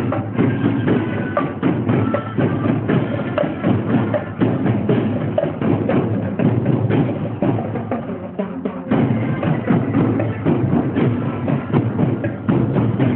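Marching drum corps playing a fast, driving drum rhythm, dipping briefly about eight seconds in before picking up again.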